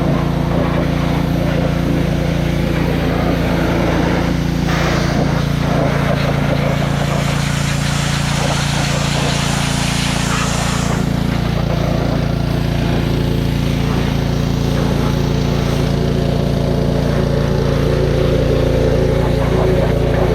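An engine running steadily at constant speed, with a broad spray-like hiss for several seconds in the middle, consistent with a pressure washer at work.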